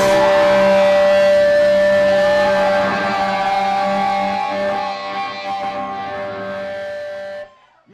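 Live band's last electric guitar chord held and ringing out with a steady sustained tone, slowly fading and then cut off abruptly near the end.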